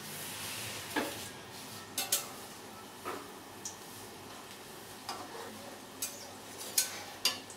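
Batter-coated chicken pieces sizzling in hot oil in a metal kadai during their second fry, while a metal utensil stirs them, clicking and knocking against the pan about nine times, loudest near the end.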